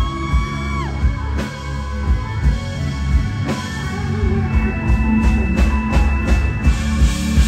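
A live rock band playing: drum beat, acoustic and electric guitars and keyboard, with a held high note that ends about a second in and a run of sharp drum or cymbal hits near the end.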